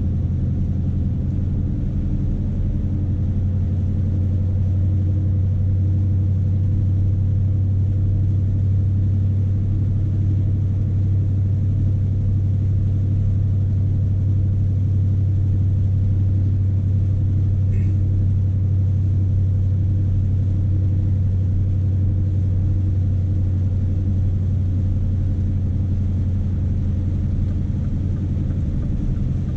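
Scania S520's V8 diesel engine running steadily, a deep, even drone that holds the same pitch and level throughout.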